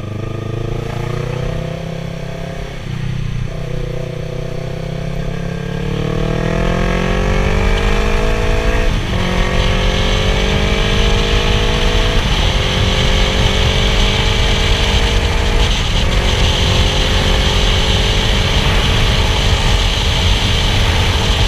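Yamaha YZF-R3 parallel-twin engine pulling under acceleration, its pitch climbing and then dropping at upshifts about 3, 9, 12 and 16 seconds in. Wind rush grows louder as speed builds.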